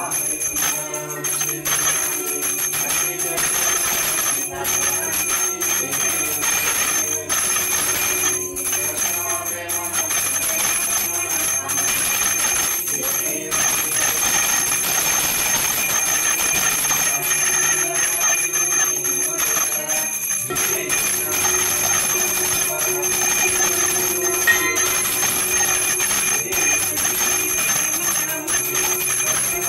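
Puja handbell rung without a break during the aarti lamp-waving, a steady high ringing, over devotional music.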